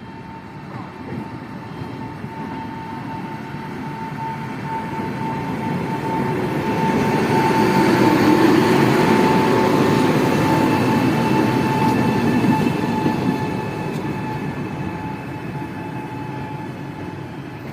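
A train passing by: its running noise builds to a peak about eight to twelve seconds in, then fades away, with a steady tone running through it.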